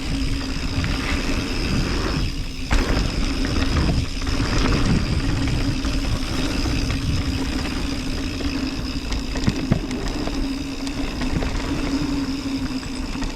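Mountain bike riding down a dirt bike-park trail: a steady rush of wind and tyre noise with a steady hum under it, and scattered rattles and knocks as the bike goes over bumps.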